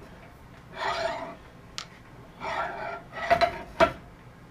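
Steel parts scraping and clinking at a hand-lever arbor press as a pressed part is handled and taken off the press table: two short scrapes, a light tick, then three sharp metallic clanks near the end.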